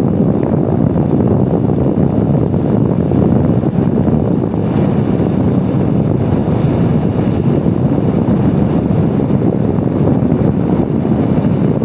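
Steady wind rushing over the microphone of a motorbike coasting downhill in neutral, its engine switched off, so no engine note is heard.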